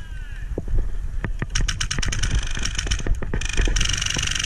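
Airsoft gunfire: quick strings of sharp shots from about a second and a half in, running together into a long, rapid full-auto string near the end.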